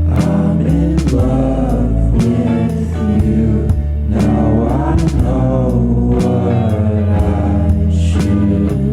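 Background music: a song with a sung vocal line over bass and a steady beat.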